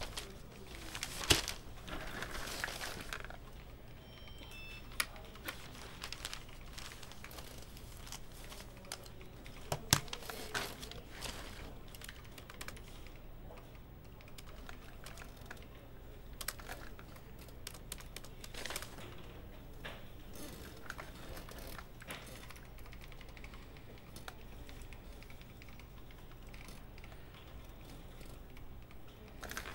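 Computer keyboard typing in short, scattered runs of key clicks, with two louder sharp knocks, one about a second in and one about ten seconds in.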